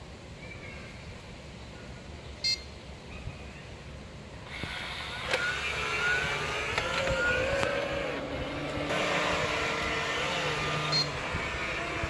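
Philips SmartPro Active robot vacuum cleaner starting up: a short beep, then about four and a half seconds in its suction fan and brushes start running with a wavering motor whine as it drives off its dock. A second short beep comes near the end.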